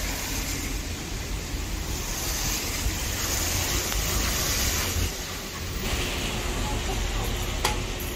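Steady street noise of traffic on wet roads, with wind rumbling on the microphone.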